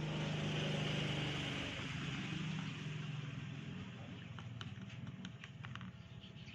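An engine hum, loudest about a second in and then fading away, with a few light clicks in the second half.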